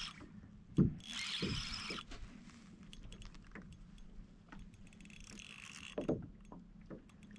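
Fishing reel being wound in as a hooked whiting is brought up, the reel mechanism ticking with patches of hiss, and a few sharp knocks about a second in and again near six seconds.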